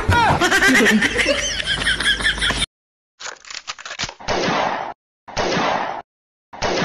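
A person's voice for about the first three seconds, cut off suddenly. After a short silence come repeated short noisy bursts, about one a second.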